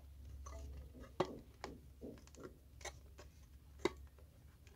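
Scattered light clicks and taps, a few seconds apart, from hands handling the disassembled UniFi access point's plastic casing and circuit board.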